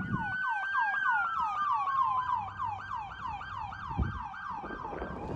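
Two emergency vehicle sirens sounding together: one in a fast yelp, about three to four sweeps a second, and one in a slow wail that rises, then falls. A brief low thump comes about four seconds in.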